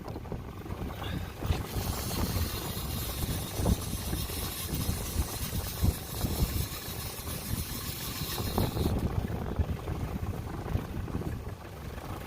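Wind buffeting the microphone over water noise around a small open boat, in uneven gusts, with a steady hiss of water from about two seconds in until near the end.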